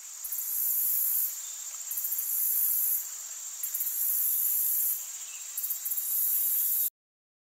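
Crickets trilling in high-pitched bursts of about a second each, four times, over a steady high insect chorus; the sound cuts off suddenly near the end.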